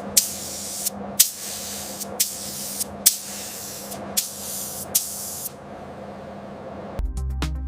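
Short bursts of pressurised spray hissing, roughly one a second, about six of them, stopping about five and a half seconds in. Electronic music with a beat starts near the end.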